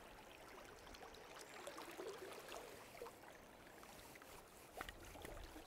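Faint, steady flow of river water, with a few scattered small ticks.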